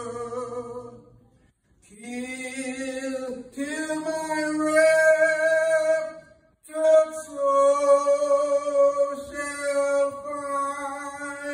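A single voice singing a slow melody without accompaniment, holding long steady notes, in phrases broken by two short pauses for breath.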